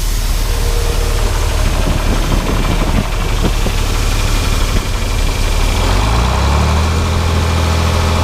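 Tractor engine running a grain auger, revving up about six seconds in to bring the auger up to speed for unloading.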